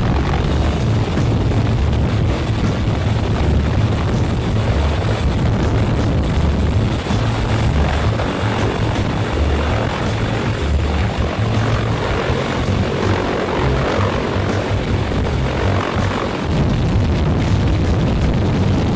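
Sikorsky CH-53E Super Stallion, a three-engine heavy-lift helicopter, hovering low directly overhead: loud, steady rotor and turbine engine noise, heard from beneath the aircraft in its downwash.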